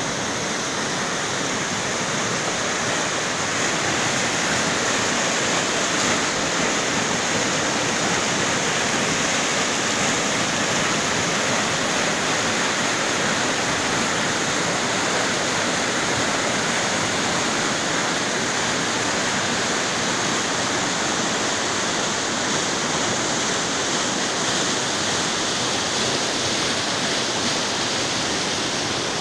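A rocky mountain river running fast over boulders in white-water rapids: a steady, unbroken rush of water.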